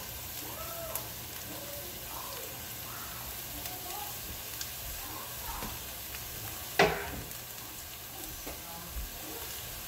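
Diced potatoes and onion frying in canola oil in a pot on a gas burner, with a steady sizzle. A single sharp knock comes about seven seconds in.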